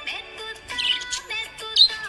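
Budgerigars chirping in short high chirps over background music with held tones.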